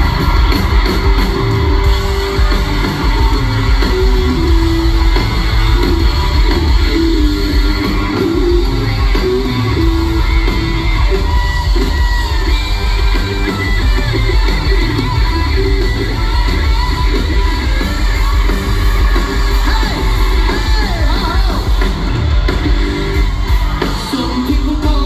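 Rock band playing live through a big PA, with electric guitar, bass, drums and a lead singer, heard from among the audience with shouts from the crowd mixed in.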